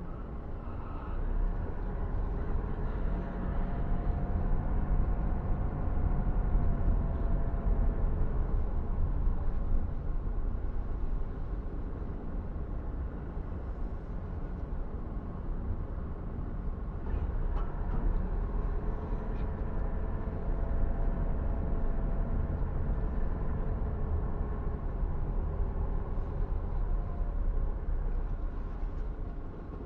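A car driving up the turning ramps of a multi-storey car park, with a steady low rumble of engine and road noise. Twice, for several seconds each, a drawn-out whine rises and falls over it.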